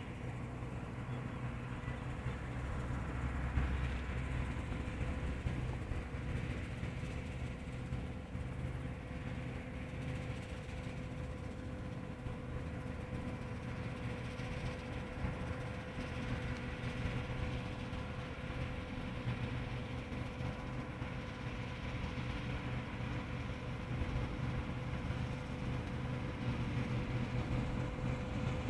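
John Deere 975 combine harvester running steadily while harvesting: a constant low engine drone with a steady thin whine from the machinery above it.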